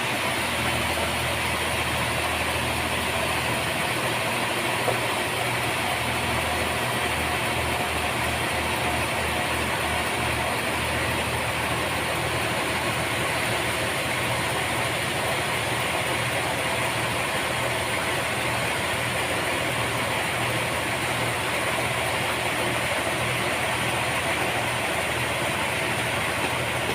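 Sawmill machinery running steadily, with a low engine hum and mechanical noise, briefly pulsing about a third of the way through.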